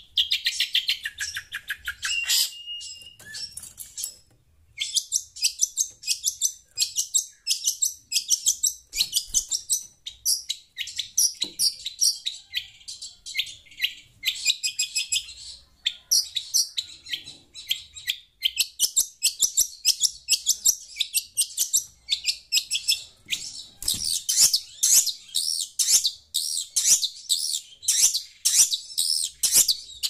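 Long-tailed shrike chattering: fast runs of short, high, scratchy notes, several a second, with a brief pause about four seconds in.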